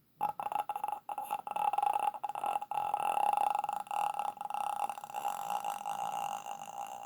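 A person making a croaking, clicking death-rattle in the throat, imitating the ghost from a horror film. It starts just after a short pause and goes on as a steady creaky rattle with brief breaks.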